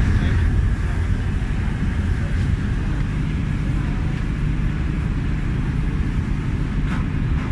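Steady low rumble of a boat's engine heard from on deck while under way, mixed with wind and water noise.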